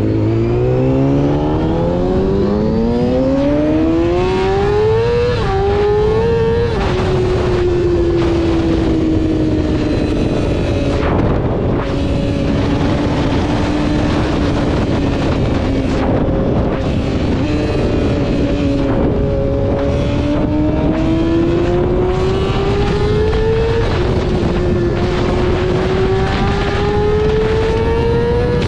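Yamaha R6 inline-four engine pulling hard at high revs, its pitch climbing steeply through the gears with upshifts about five seconds in, easing off through the middle, then winding up again through another shift near the end.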